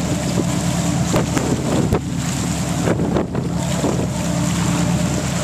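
A fishing boat's engine running steadily as it trolls, with wind buffeting the microphone and a few sharp knocks.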